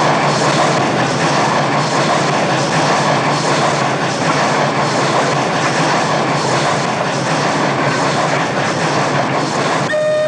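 Steam locomotive running at speed, a steady loud rush with a regular chuff about twice a second. Its steam whistle starts blowing near the end, one steady note.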